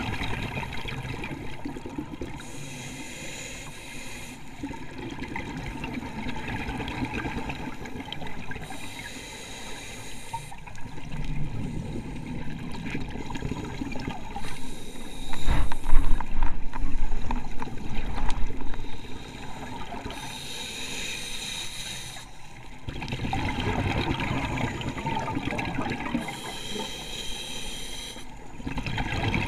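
Scuba diver breathing through a regulator underwater: a hissing inhale, then a burbling rumble of exhaled bubbles, repeating in a slow cycle about every six seconds. The loudest bubble burst falls about halfway through.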